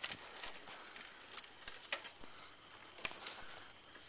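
Insects droning on one steady high note, with scattered irregular clicks and rattles from a bicycle ridden along a rough forest track.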